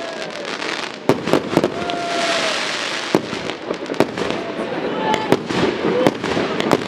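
Fireworks display: aerial shells bursting with sharp bangs every second or so, over a continuous crackling of glittering stars.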